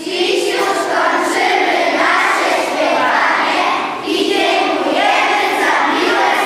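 A children's choir singing a Christmas carol together.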